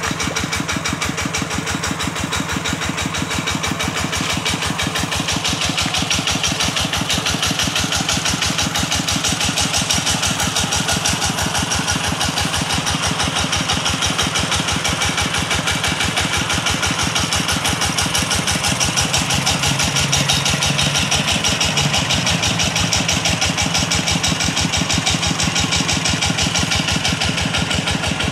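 The single-cylinder diesel engine of a two-wheel walking tractor running steadily at a constant speed, with a rapid, even firing beat. It is under load, driving an irrigation water pump.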